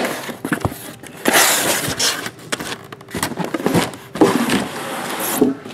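Cardboard shipping cases being slid across and set down on a table, with scraping stretches and a few sharp knocks.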